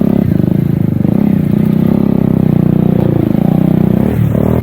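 Motorcycle engine running close by, its revs rising and falling gently as it is eased over rough trail ground.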